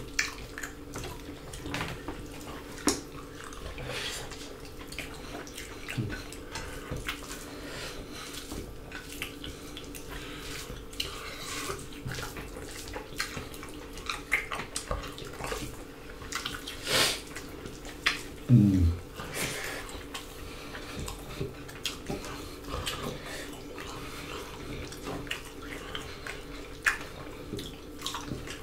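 Close-miked eating with the hands: wet chewing and lip smacking, with fingers picking through rice, fish and salad on plates, as a string of short clicks and smacks. A short hummed "mm" comes about 18 seconds in, over a faint steady hum.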